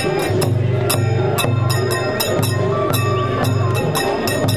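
Japanese festival hayashi music played loud and steadily, with drums and sharp percussion strikes about four a second.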